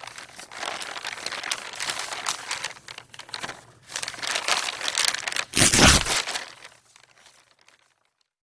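A sheet of origami paper being handled, crinkling and rustling. There is a louder, fuller rustle with a low thump about five and a half seconds in, and the sound fades out near the end.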